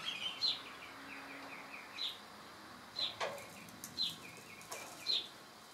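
A small bird chirping repeatedly: short downward-sliding chirps, each followed by a quick run of softer twittering notes, about once a second, over a faint steady hiss.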